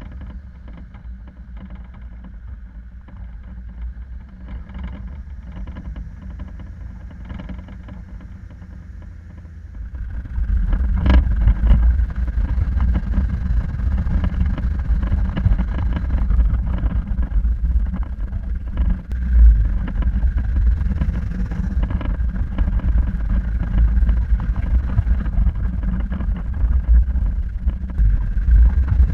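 Four-wheel-drive vehicle driving off road, its engine a low steady rumble that grows louder about ten seconds in, with occasional knocks.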